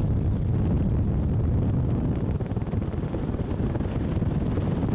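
Loud, steady wind rushing and buffeting over the microphone during a skydiving freefall, a dense low rumble with no engine tone.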